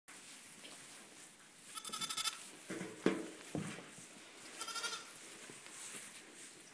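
Sheep bleating: two quavering bleats, one about two seconds in and one near five seconds, with shorter, lower calls between them.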